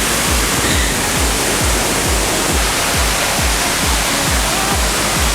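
Waterfall water rushing, a loud, even wash of noise, with background music's steady low beat about twice a second.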